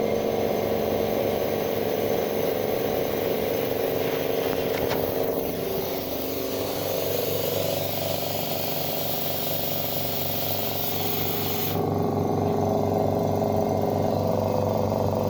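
Oil-free electric air compressor running steadily, its motor and pump giving a low, even hum. A high hiss of air runs with it and cuts off suddenly near the end, leaving the motor sound.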